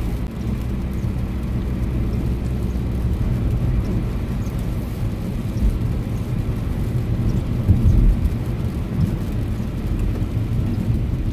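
Heavy rain pouring on a moving car, heard from inside, over steady low road and engine rumble, with a brief louder low thump about eight seconds in.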